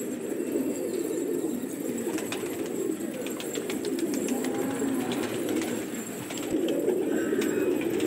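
A flock of domestic pigeons cooing together in a continuous low chorus. A run of light clicks comes about two to three and a half seconds in.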